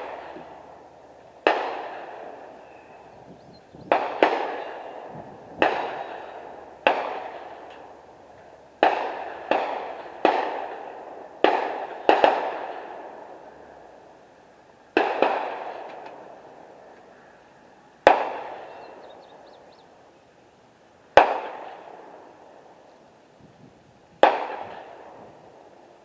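Gunshots at an outdoor shooting range: about fifteen sharp reports at uneven intervals, some only a fraction of a second apart, so several guns are firing. Each shot is followed by an echo that takes a second or more to die away.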